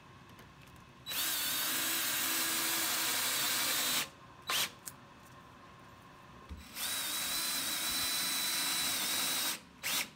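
Power drill running into pallet wood in two steady runs of about three seconds each, with a thin high motor whine. A short blip comes between the two runs.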